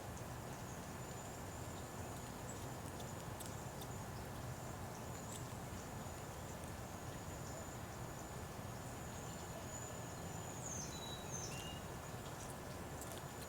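Outdoor ambience at a bird feeder: a steady high-pitched tone runs throughout, with a few faint ticks, and about eleven seconds in a bird gives a short run of calls that step down in pitch.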